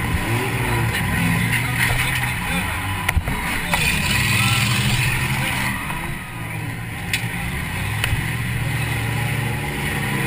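Demolition derby car's engine revving up and down in bouts, heard from inside the cabin as the car drives, with a few sharp knocks about three and seven seconds in.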